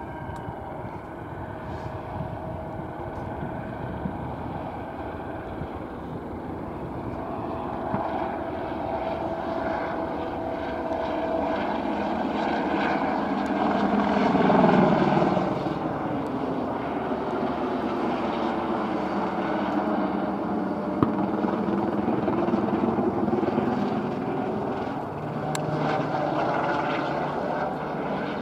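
Airbus EC120B single-turbine helicopter flying display manoeuvres overhead, its turbine and rotors running steadily. It swells to its loudest about halfway through, the pitch falling as it does, and rises and falls in pitch again near the end as it turns.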